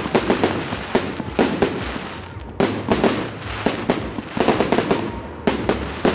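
Fireworks display: aerial shells bursting one after another, a rapid, unbroken series of sharp bangs, several a second.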